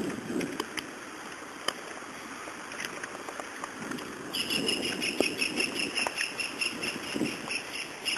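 Rapid, evenly pulsing high-pitched chirping from a small animal, starting about four seconds in, over a low rumble of wind and movement on the microphone with a few scattered clicks.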